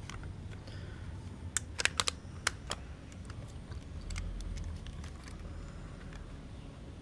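Nikon F 35mm camera's removable back and bottom plate being fitted and locked by hand: a run of sharp metal clicks about one and a half to three seconds in, then quieter handling and rubbing.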